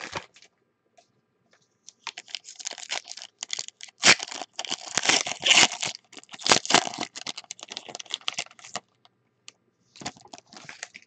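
Foil trading-card pack wrapper being torn open and crinkled in the hands: a dense crackling with a few sharp rips, starting about two seconds in and stopping a couple of seconds before the end, then a few brief crinkles.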